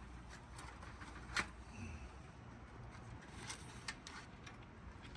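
Faint handling noise with a few short, sharp clicks over a low steady hum: small metal parts and hardware being handled while a run capacitor is freed from its mounting bracket.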